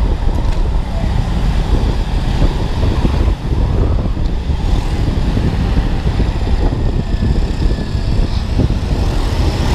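Riding a Honda Beat scooter in street traffic: a steady, heavy wind rumble on the camera microphone over the scooter's running engine and the surrounding traffic.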